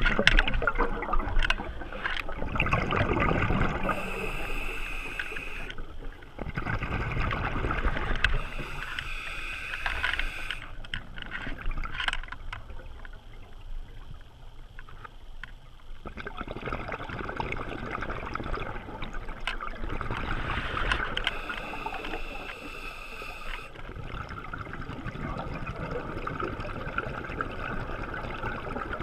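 Underwater scuba breathing: a diver's regulator hissing on each inhale, alternating every few seconds with gurgling rushes of exhaled bubbles.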